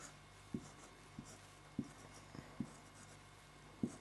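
Marker pen writing on a whiteboard: a faint, intermittent series of short taps as each stroke begins, with light squeaks of the tip between them.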